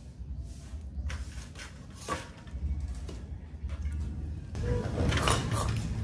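Handling noise from a bicycle crankset being fitted by hand: scattered clicks and knocks of metal parts, then a louder, denser run of clicking and rattling near the end as the crank arm is turned.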